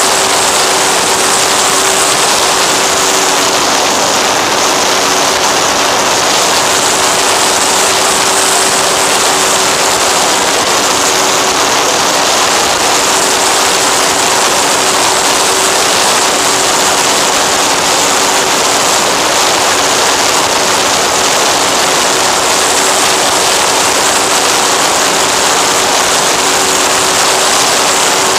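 In-flight onboard audio of an FX-79 flying-wing model plane: the steady drone of its motor and pusher propeller, with a faint constant hum under loud, even rushing air noise on the microphone.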